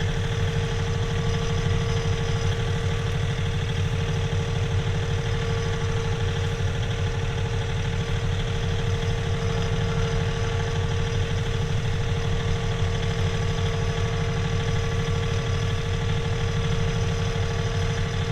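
John Deere 3039R compact tractor's three-cylinder diesel engine running steadily at an even speed, with a steady whine over the engine note.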